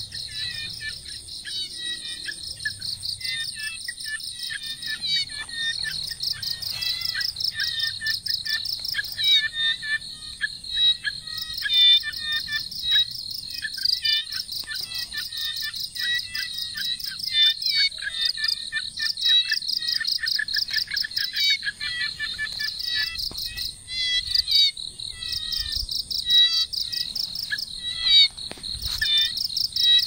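Night-time chorus of calling insects: a steady high-pitched whine over fast pulsing trills, with many short chirps repeated throughout.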